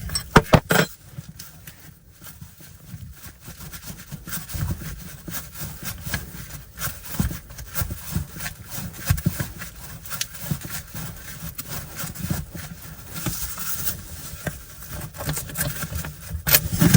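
Hand work on the boat's fittings: scattered knocks, clicks and scrapes, with a cluster of sharp clicks in the first second.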